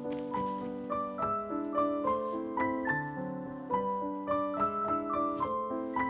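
Solo piano music, a melody of struck notes over lower held notes.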